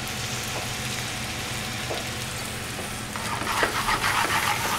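Risotto sizzling in a hot stainless steel sauté pan just after chicken stock has been poured in. About three seconds in, a metal utensil starts stirring and scraping through the rice, and the sound gets louder.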